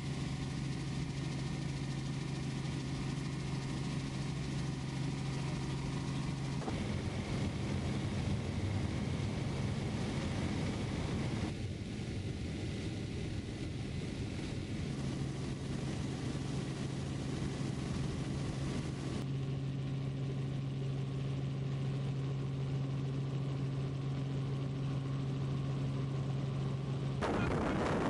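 Steady engine and rotor drone inside a small helicopter's cabin in flight, a constant low hum under a rushing noise. Near the end it gives way to a louder rush of wind noise.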